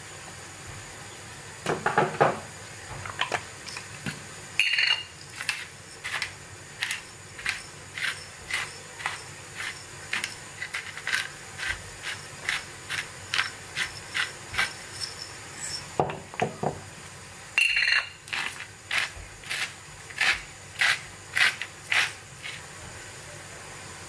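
Black pepper and salt being ground by hand from a spice mill, in two runs of short crunchy grinding strokes, about two a second, with a few clunks of kitchenware being handled between the runs.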